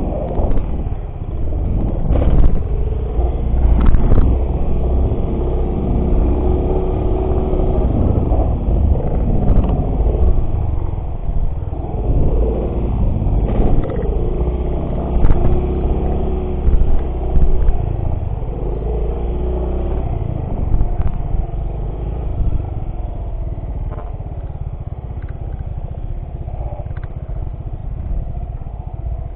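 Small off-road motorcycle engine running while riding, its pitch rising and falling with the throttle. A heavy low rumble lies under it, with scattered short knocks.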